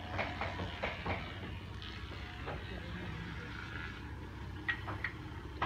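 Footsteps of someone walking on a dirt path: a run of short steps in the first second, then a few more near the end, over a steady low rumble.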